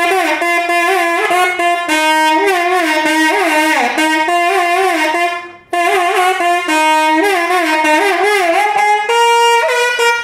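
Nadhaswaram playing a Carnatic melody, one loud reedy line full of sliding ornaments, with a brief break about five and a half seconds in.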